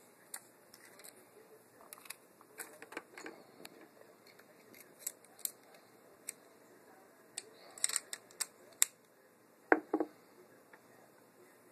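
Hands handling the new thermostat's plastic parts and packaging: scattered rustles and small plastic clicks as the wall plate is taken out of the box, busiest around 8 seconds in, with two sharp clacks a little before the end.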